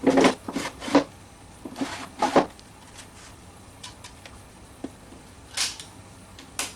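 Knocks and clatter of a small wooden tool box and its drawers being handled: several sharp knocks in the first second and another about two seconds in, then light taps and two short scraping rushes near the end.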